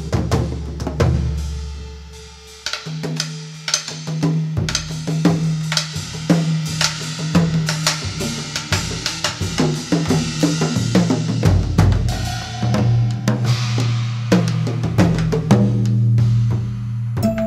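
Theme music led by a drum kit, with a steady beat of bass drum, snare and rim hits over sustained low bass notes, dipping briefly about two seconds in.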